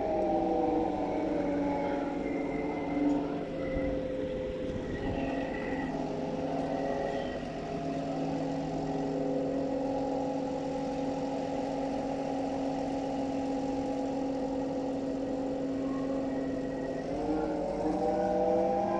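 Engine of a heavy construction vehicle running. Its pitch drops over the first few seconds, holds steady, then rises again near the end as it revs up.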